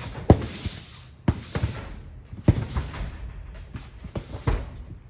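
Rummaging through cardboard boxes of clothing: rustling fabric and cardboard, broken by a string of sharp knocks and thumps as boxes and flaps are handled.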